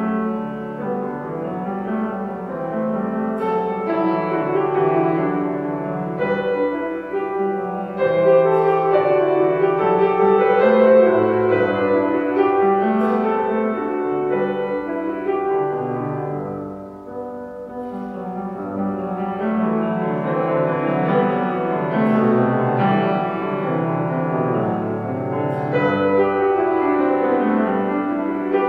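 Grand piano being played: a flowing piece of sustained chords and melody that grows louder about a quarter of the way in, drops to a soft passage a little past halfway, then builds again.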